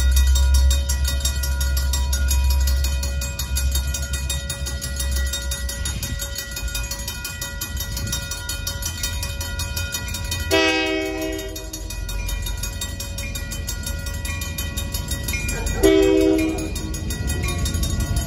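Griswold mechanical crossing bells ringing continuously, with a low rumble in the first few seconds. An EMD GP60 locomotive's horn sounds twice: a blast of about a second and a half about ten seconds in, and a shorter one about sixteen seconds in.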